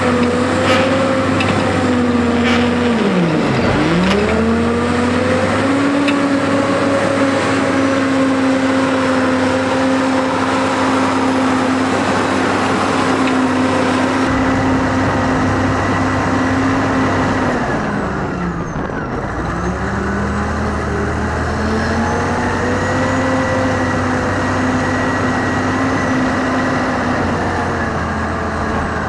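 Caterpillar 988A wheel loader's diesel engine working under load, running steadily. Its pitch drops sharply and climbs back twice, about four seconds in and again a little past the middle.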